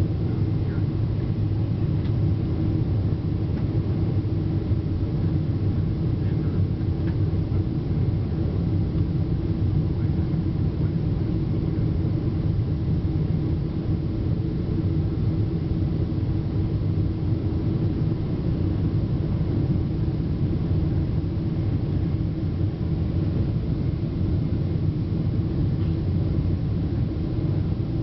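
Steady cabin rumble of a Boeing 777-200 on final approach: engine and airflow noise heard from inside the passenger cabin, low and even throughout.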